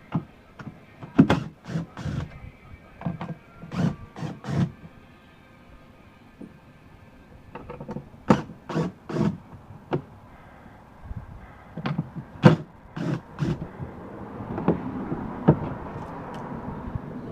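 Irregular knocks, clicks and clatter of panels and hardware being handled and pulled loose while stripping out a car-audio install, with a steady hissing noise coming in over the last few seconds.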